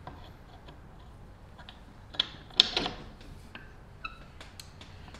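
Carlton rivet spinner being cranked to swage the rivets of a chainsaw ripping chain into domed heads: scattered metal clicks and ticks from the tool and chain links. A cluster of sharper clacks about halfway through is the loudest part, and there is a brief squeak near four seconds.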